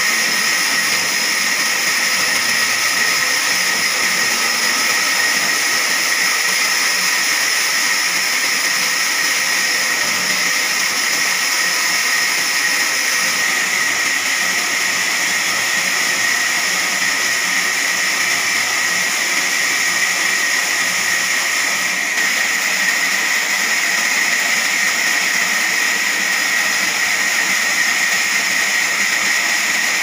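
Large horizontal band sawmill running, its blade cutting lengthwise through a squared log: a loud, steady whine and hiss without pause.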